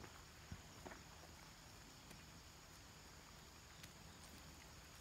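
Near silence: faint outdoor background with a few soft clicks and taps, about half a second, one second and nearly four seconds in, from goats cropping wheatgrass and stepping in the grass.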